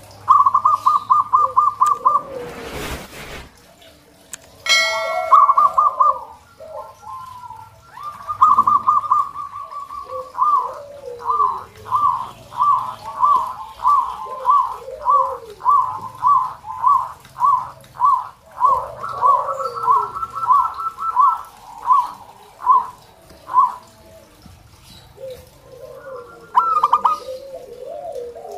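Zebra doves (perkutut) cooing: quick staccato trills of high notes, then a long run of evenly spaced single notes about one every half-second, with lower warbling coos from other doves beneath. A brief rushing noise about three seconds in.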